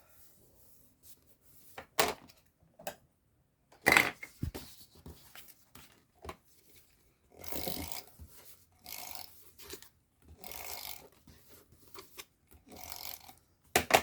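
Paper and cardstock being handled while a finished card is mounted: short stretches of rubbing and rustling, with a few sharp taps on the work surface, the loudest about four seconds in.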